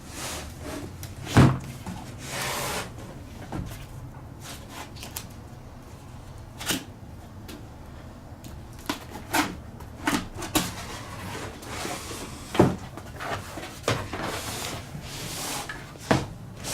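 Cardboard box being opened by hand: irregular knocks and thuds of cardboard flaps and packaging, with stretches of rustling. The loudest thump comes about a second and a half in.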